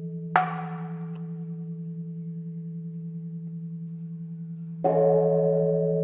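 A big temple bell rings on with a deep tone that pulses slowly; the wooden board is struck once with a wooden striker about half a second in, a sharp knock over the ringing, and the bell is struck again near the end, adding a loud, bright, sustained ring. This bell-then-board alternation is the temple's transition signal that the next session, led by another Dharma instrument, is beginning.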